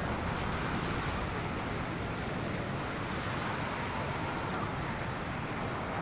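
Small ocean waves washing onto a sandy beach under a steady wind, with low wind rumble on the microphone.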